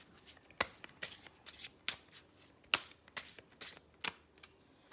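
A deck of oracle cards being shuffled by hand: an irregular run of quick, sharp card flicks and slaps.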